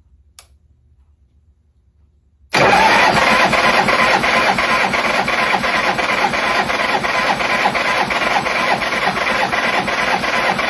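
Harley-Davidson Shovelhead V-twin cranked over on its starter with the spark plugs out and the throttle wide open, after two faint clicks. It makes a steady, evenly pulsing churn for about nine seconds, starting a couple of seconds in, without firing. This is a compression test, and the gauge on the rear cylinder reads zero: the sign of a catastrophic top-end failure.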